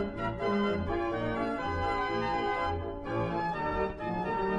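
Organ music: a keyboard tune of held chords and changing notes over a regular bass line.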